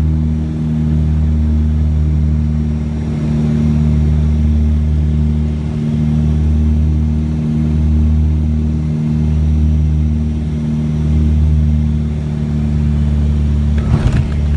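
Turboprop aircraft's engines and propellers droning steadily from inside the cabin on the final approach to landing, a low hum that slowly swells and eases. A brief rattle comes near the end.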